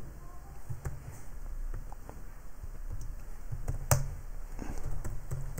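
Computer keyboard typing: scattered, fairly soft key clicks, with one sharper keystroke about four seconds in.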